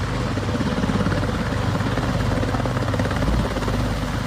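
Sikorsky HH-60 Pave Hawk helicopter running on the ground with its rotors turning: a steady, rapid rotor beat over the engine noise.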